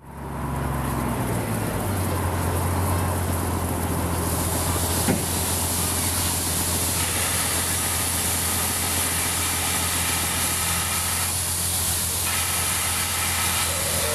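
Steady low engine hum with steam hissing from a small steam locomotive. The hiss grows louder about four seconds in, and there is a single sharp click about five seconds in.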